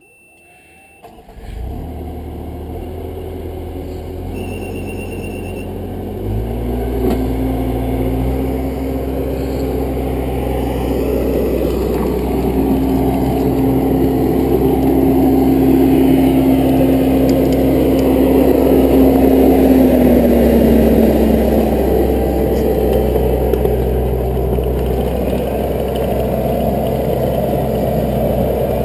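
Skid steer engine starting about a second in and then running steadily, with a short electronic beep a few seconds later. About six seconds in the engine speeds up and a steady whine comes in, holding for about fourteen seconds before falling away.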